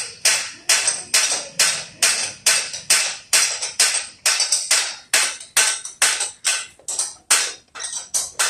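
A hammer striking metal in a steady rhythm, about three blows a second, each blow sharp with a short metallic ring.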